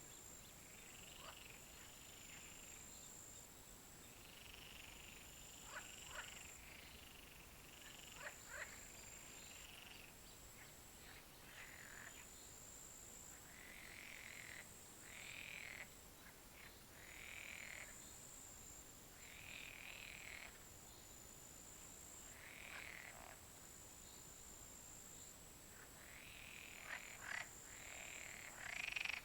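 Faint frogs croaking, separate calls of about a second each repeating every second or two, with a few sharp clicking calls among them. A steady high buzz runs underneath.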